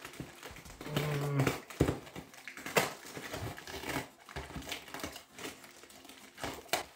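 Plastic wrap and cardboard packing crinkling and rustling as hands work a wrapped plant loose from its box, with irregular sharp crackles and clicks.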